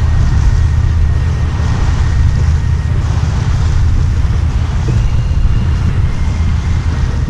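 Wind buffeting the action camera's microphone: a loud, steady low rumble.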